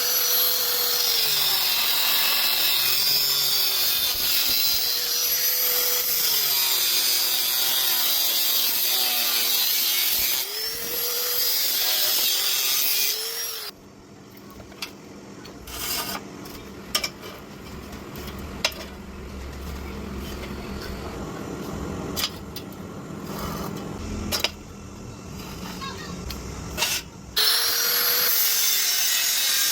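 Power grinder grinding metal, its motor pitch dipping and recovering as it is pressed into the work. It stops about halfway through, leaving a quieter stretch with scattered sharp clicks and taps, and starts grinding again near the end.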